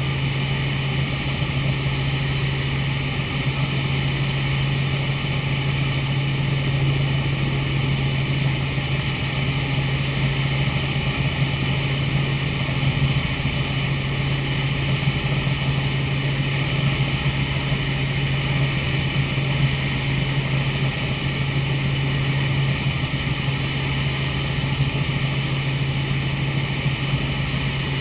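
Robinson R44 Raven II helicopter in flight, heard from inside the cockpit: a steady drone of the rotors and six-cylinder piston engine, with a strong low hum that holds constant throughout.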